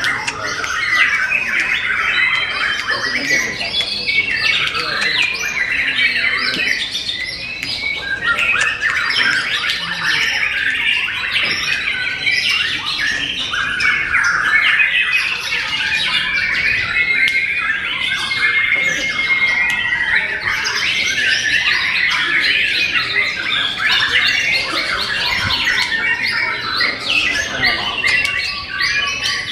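White-rumped shamas (murai batu) singing continuously in a dense chorus, many birds' rapid whistles and chattering phrases overlapping, as caged birds do at a songbird contest.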